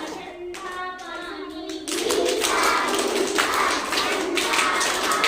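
Children's voices reciting or chanting for about two seconds, then a group of children clapping, louder, with voices mixed in.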